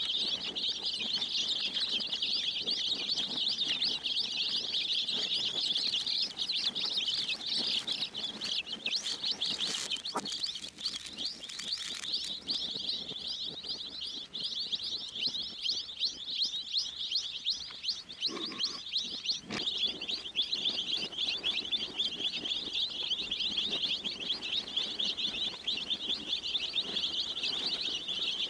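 A crowd of baby chicks peeping all at once, a dense, unbroken chorus of high peeps. A few short knocks sound through it.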